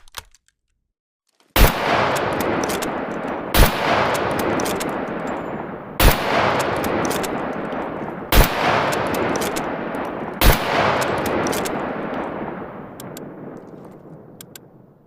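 M1891 bolt-action rifle fired five times, about two seconds apart. Each shot has a long echoing tail that runs into the next and fades out a few seconds after the last one. Light clicks sound between the shots.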